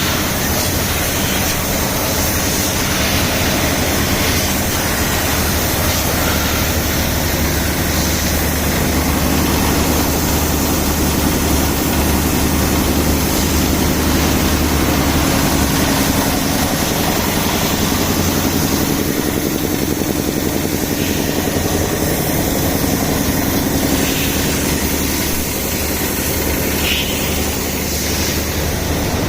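Air compressor running with a steady engine-like drone, under the broad hiss of compressed air blown over a generator to clean off dust.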